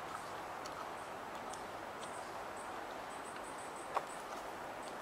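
Steady outdoor background hiss, with a few faint, high, short bird chirps around the middle and one brief soft sound about four seconds in.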